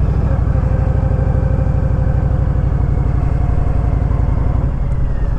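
Honda VTX 1300R's V-twin engine running at steady low revs while the motorcycle is ridden.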